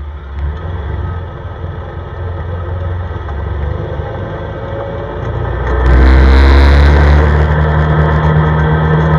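CFMoto ATV engine pulling away and accelerating on a snowy road: a low rumble that grows steadily louder, then about six seconds in a sharp surge with a climbing whine and a rush of hiss, after which the engine runs steady at a higher, louder pitch.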